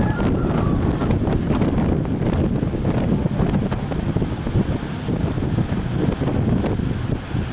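Strong wind buffeting the microphone: a dense, fluttering low rumble.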